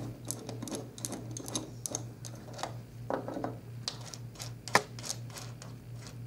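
Irregular light clicks and taps of long acrylic fingernails, a brass nut and a nut driver against the plastic housing and metal stud of a high-amp circuit breaker, with one sharper click about three-quarters of the way through. A steady low hum runs underneath.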